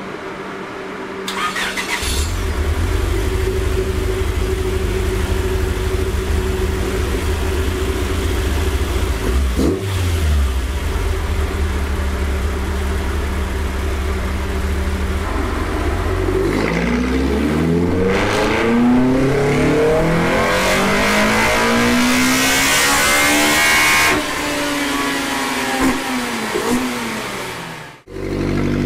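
Naturally aspirated Toyota 4A-GE four-cylinder breathing through individual throttle bodies, on a chassis dyno pull: it runs steadily at low revs, then from about halfway the revs climb hard under full throttle to a high-rpm peak. A few seconds before the end the throttle is shut and the revs fall away. The run is with the inlet cam retarded 8 degrees for a cam-timing test.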